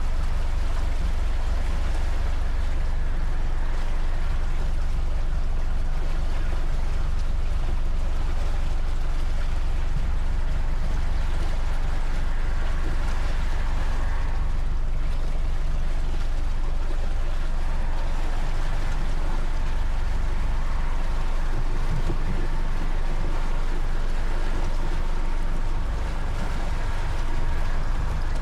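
Motor cruiser's Volvo Penta inboard engine running steadily under way, a deep even drone with the rush of water along the hull over it.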